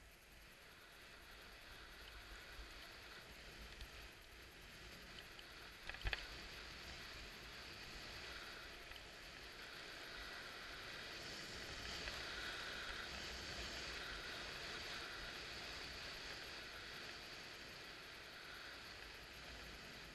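Skis sliding on packed snow with air rushing past, a steady hiss that swells and then eases off. A single sharp knock about six seconds in.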